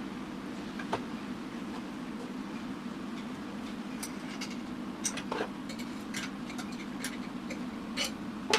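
DIY 500-gram coffee roasting machine running with a steady low hum and scattered sharp clicks from the beans.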